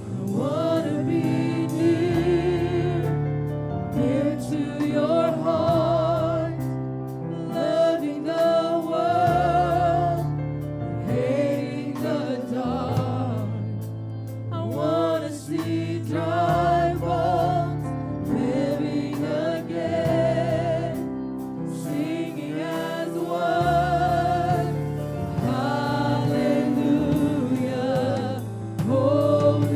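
Gospel music: a choir singing with vibrato over sustained low instrumental chords.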